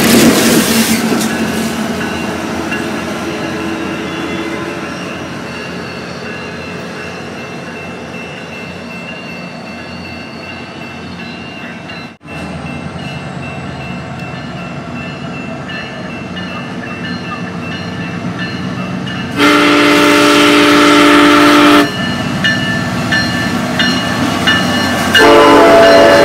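SunRail commuter train noise: a diesel locomotive passing close, loud at first and fading, then a steady low train rumble. About two-thirds of the way in, a multi-note train horn sounds loudly for about two and a half seconds, and a second horn blast starts near the end.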